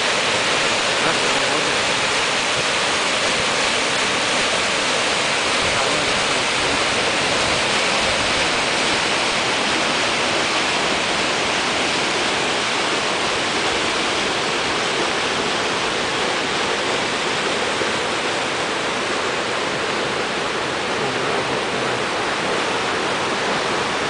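Mountain river rushing over boulders in small cascades: a steady rush of white water.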